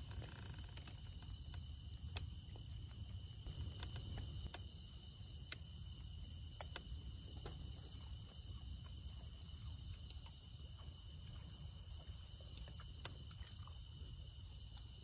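Night insects, crickets, chirring in a steady high chorus, over a low steady rumble, with scattered sharp clicks every second or two.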